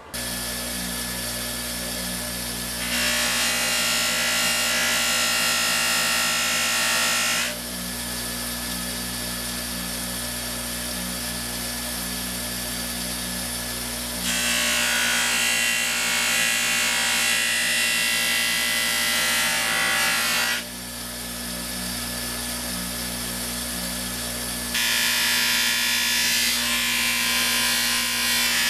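Bench grinder running with a steady motor hum, and a metal part pressed against its spinning wheel three times. Each press adds a louder, hissing scrub that lasts several seconds, then drops back to the plain motor hum.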